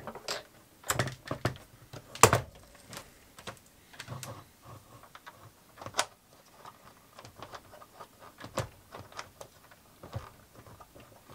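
Clicks and knocks of a Norcold RV refrigerator's plastic freezer door being fitted back onto its hinges. There is a sharper knock about two seconds in and a run of light ticks in the second half.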